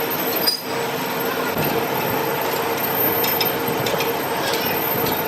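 A metalworking machine running steadily with a constant hum, with a few light metallic clicks and clinks scattered through it.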